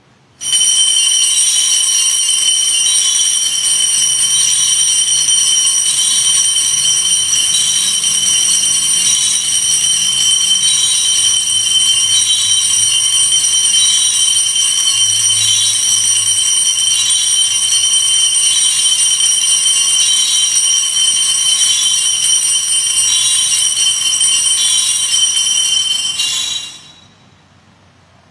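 Altar bells (a hand-held cluster of sanctus bells) shaken continuously for the Benediction, when the priest blesses the people with the monstrance holding the Blessed Sacrament. It is a loud, steady high jingling with a light shimmer about once a second, starting suddenly and stopping near the end with a short fade.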